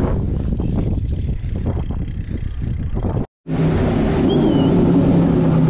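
Wind buffeting the microphone while riding. After a sudden cut, a motor vehicle engine runs steadily nearby amid town traffic noise.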